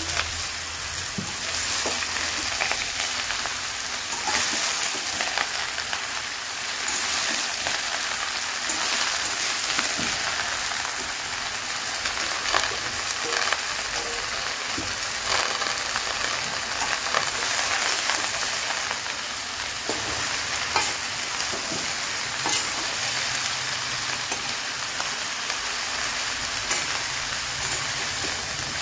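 Chopped bottle gourd sizzling in hot oil in a steel kadhai, with a steel spatula scraping and clicking against the pan as it is stirred.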